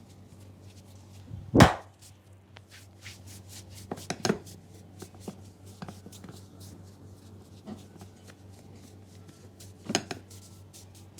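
Percussive hand strikes of a barber's head massage: one very loud sharp slap about a second and a half in, a quick cluster of strikes around four seconds, and another loud slap near the end, with many small crisp clicks between them over a steady low hum.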